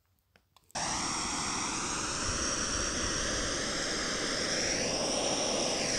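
Steady rushing hiss of a flame, a gas burner lighting sugar and potassium nitrate fuel, starting suddenly under a second in.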